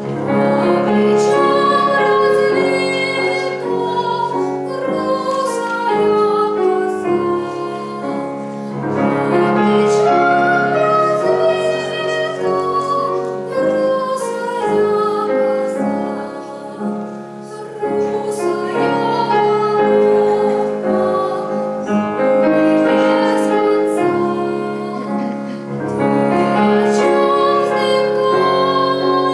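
A girl singing a classical song in academic (operatic) style, held notes with vibrato, accompanied on a Schimmel grand piano.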